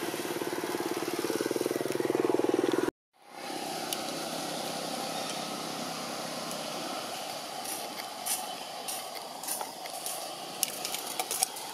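A motor vehicle engine running close by, with a fast, even pulse that grows slightly louder, then cuts off abruptly about three seconds in. Steady outdoor background noise follows, with scattered sharp clicks in the last few seconds.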